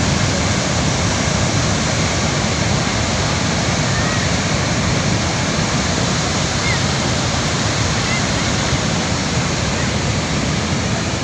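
Steady, loud rush of a mountain river or stream in spate.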